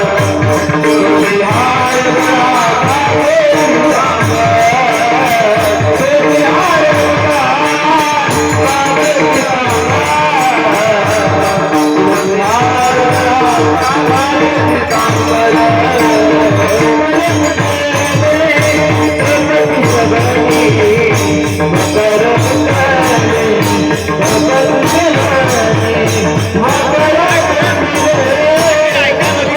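Marathi devotional bhajan music: a wavering, ornamented melody over a fast, steady jingling of small hand cymbals and drum strokes.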